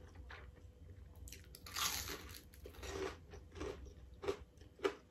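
Biting and chewing a crispy battered fried shrimp: a loud crunch about two seconds in, followed by several shorter crunches as it is chewed.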